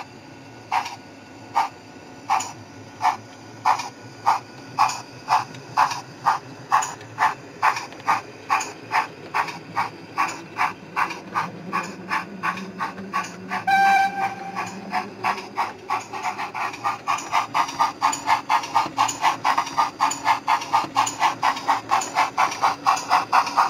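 O gauge model GWR pannier tank locomotive's DCC sound decoder playing steam exhaust chuffs as the engine pulls away with its train. The beats speed up steadily from about one a second to about four a second, and a short whistle blast sounds about halfway through.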